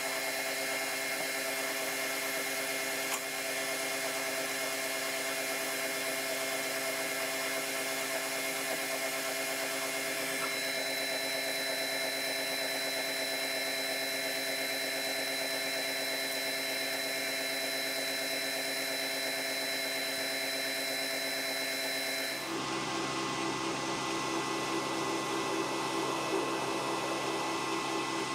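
Metal lathe running steadily, its motor and gearing giving a constant whine made of several fixed tones. About three quarters of the way through, the sound changes abruptly to a lower, different hum.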